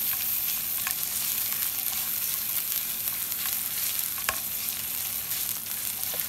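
Garlic, ginger and sliced red chillies sizzling in hot oil in a metal pan, stirred with a silicone spatula. The aromatics are being fried briefly to take off their raw edge. A steady hiss runs through, with a few light clicks, the sharpest about four seconds in.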